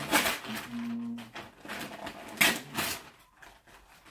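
Wrapping paper rustling and tearing in a series of short, crackly bursts as a gift is unwrapped.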